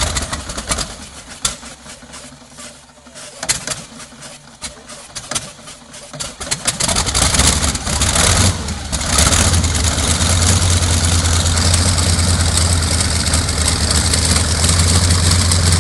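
Yak-52's nine-cylinder radial engine starting: irregular coughs and pops for the first several seconds, then it catches about seven seconds in, falters briefly, and settles into a steady run.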